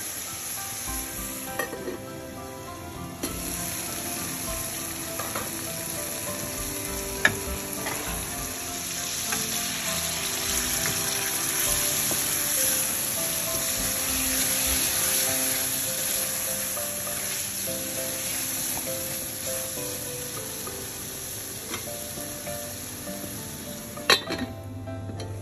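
King prawns sizzling as they fry in a bubbling onion-and-spice masala in an aluminium pot while a wooden spoon stirs them; the sizzle rises a few seconds in and is loudest in the middle. Near the end an aluminium lid clanks down onto the pot and the sizzle becomes muffled.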